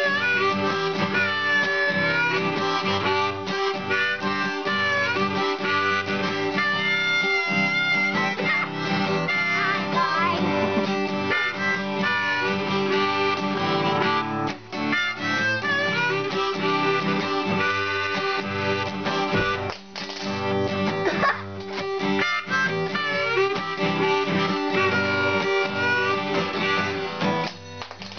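Harmonica in a neck rack played together with a strummed acoustic guitar by one player, the harmonica carrying the sustained melody over the chords.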